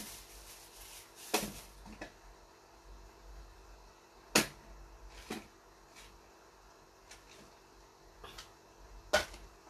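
Several separate sharp knocks and clicks of condiment bottles and kitchen things being handled and set down on a counter, the loudest a little after four seconds and just after nine seconds, with a short hissing rush at the very start.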